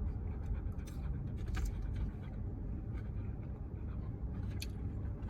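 Steady low rumble inside a parked car's cabin, with a few faint light clicks.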